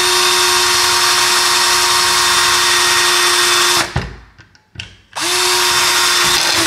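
Black+Decker cordless drill running at a steady speed as its bit bores a pilot hole. It stops about four seconds in and winds down, followed by a few light clicks. It then starts up again a second or so later.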